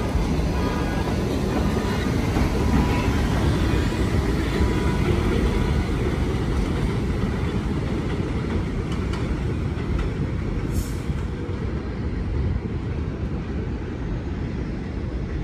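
R62A subway train pulling away along the elevated track, its steady rumble of wheels on rail slowly fading as it recedes. A faint steady whine in the first few seconds fades out.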